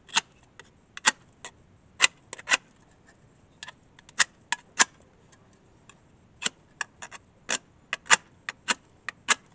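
Tin can lid knife's edge scraped in short, sharp strokes down a magnesium fire-starter rod, about twenty strokes at roughly two a second with a couple of short pauses. The tin edge is not throwing a useful spark.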